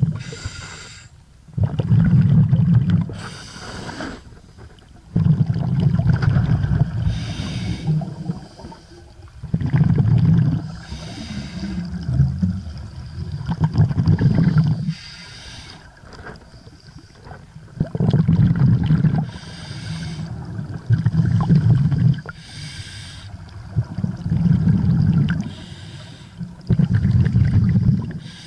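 Scuba regulator breathing underwater: a short hiss of the inhale through the demand valve alternates with a longer, louder bubbling rumble of the exhaled air, repeating about every three seconds.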